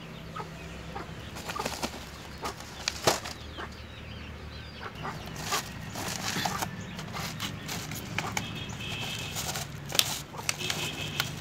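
Chickens clucking, a few short calls near the end, over irregular clicks and rustling from wire-mesh traps and woven plastic sacks being handled.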